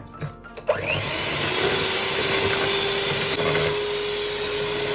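Electric hand mixer switched on about a second in, its motor whining up to speed and then running steadily as it beats cake batter, after a couple of light knocks.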